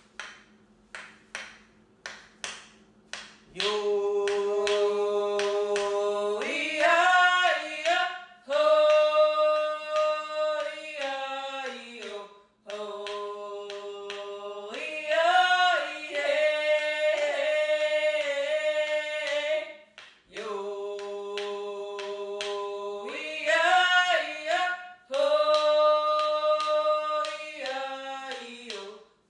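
A song sung by one voice with long held notes over a steady drumbeat of about two beats a second. The drum plays alone for the first three seconds or so before the voice comes in, and the singing goes in phrases with brief breaks between them.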